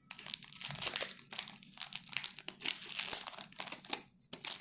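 Foil wrapper of a 1991 NFL football card pack being torn open and crinkled by hand, an irregular run of crackling and crumpling with a brief lull near the end.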